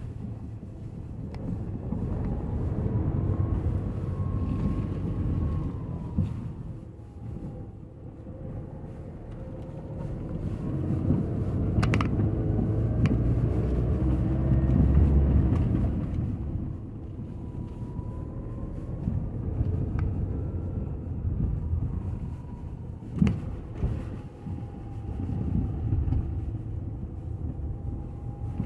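Car driving slowly over a muddy, rutted dirt track, heard from inside the cabin: a low engine and tyre rumble that swells and eases, with two sharp knocks, one about halfway through and another later on.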